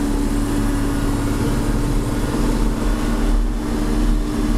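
John Deere 4630's turbocharged six-cylinder diesel running steadily under load, pulling a chisel plow, heard from inside the cab as an even, unbroken drone.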